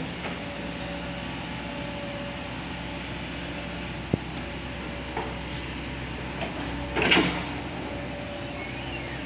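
Kobelco SK140 hydraulic excavator's diesel engine running steadily. A sharp click comes about four seconds in, and a brief louder rush about seven seconds in.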